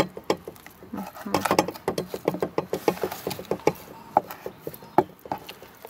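Knife cutting along a raw trout fillet on a wooden cutting board, the blade passing over the rib bones with a run of small, irregular clicks and ticks.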